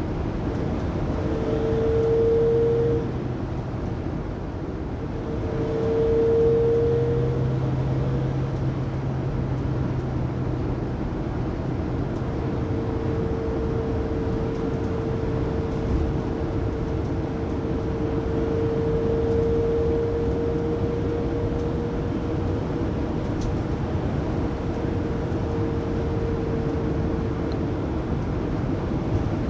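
Whining drivetrain noise inside the cabin of a 2019 Mercedes-Benz Sprinter 3500XD van at highway speed, over steady road noise, recorded on a phone. The whine is a single tone that swells briefly twice in the first few seconds, then holds from about twelve seconds in until near the end. The whine has survived replacement of the drive shaft and differential.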